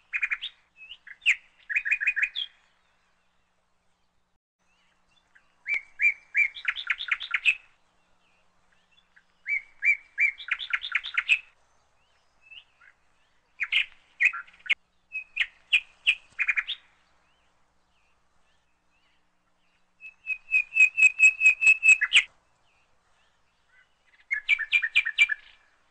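A songbird singing in short phrases of rapid repeated chirps, six phrases with pauses of a few seconds between them.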